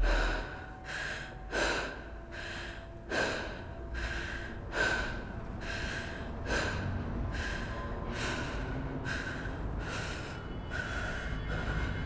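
Heavy, rhythmic breathing through an open mouth, in and out about twice a second, with a faint steady drone underneath.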